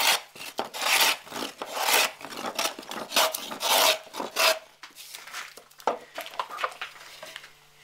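Scrub plane with its blade set for a heavy cut shaving across the face of a board in quick, rasping strokes, roughly one or two a second, flattening rough stock. The strokes stop about four and a half seconds in, leaving only a few light knocks.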